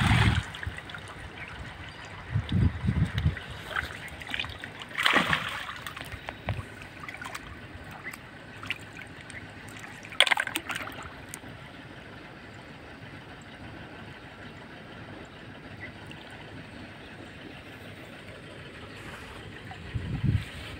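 Pond water splashing and sloshing as people wade and grope through it by hand, with three louder splashes a few seconds apart over a steady trickle of water.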